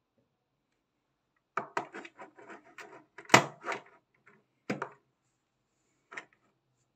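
Majorette die-cast toy buses clattering and knocking as they are handled, turned over and set down on a table: a run of small clicks and rattles with one louder knock about halfway through, then two more single knocks.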